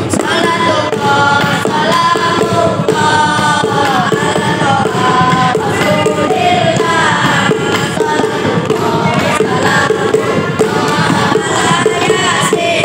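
A group of boys singing a nasyid together into microphones, with a steady percussion beat underneath.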